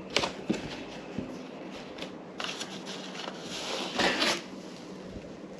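Hands rustling and scraping in a cardboard box as a bagged motorcycle helmet is handled and lifted out: a couple of light knocks at the start, then bursts of rustling, the loudest about four seconds in.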